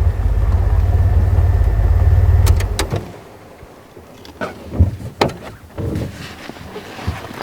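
Safari vehicle's engine running with a steady low rumble, then switched off about three seconds in, just after two sharp clicks. After it stops, scattered quieter knocks and clicks follow.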